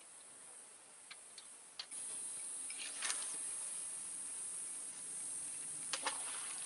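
Steady high-pitched buzz of insects, which grows louder about two seconds in. A few sharp clicks and a brief rush about three seconds in sound over it.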